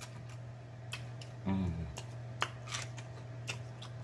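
Close-up eating sounds of a person chewing food: scattered sharp, wet lip smacks and mouth clicks, with a short hummed 'mm' about a second and a half in, over a steady low hum.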